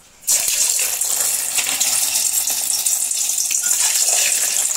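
Peeled hard-boiled eggs dropped into oil heated until it smokes, setting off a loud, steady sizzle that starts suddenly about a quarter second in.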